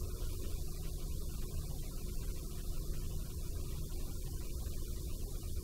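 Room tone: a steady low hum under a faint hiss.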